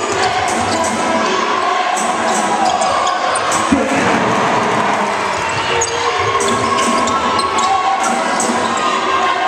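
Basketball game sounds in a large hall: the ball bouncing on the wooden court amid a steady crowd hubbub.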